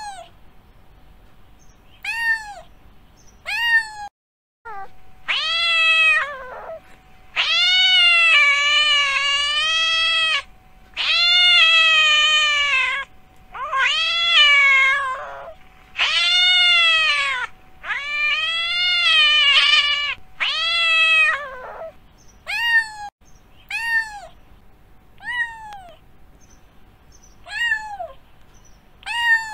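Domestic cat meowing: a few short meows, then a run of long, drawn-out meows lasting a second or two each, then short meows again near the end. A brief cut to silence comes about four seconds in.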